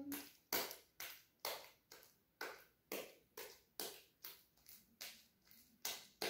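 Sticky homemade slime, made of glue, shampoo and toothpaste, being pressed and slapped against a tile floor and pulled up again. It makes a short wet squelch about twice a second, and it is just starting to come unstuck from the floor.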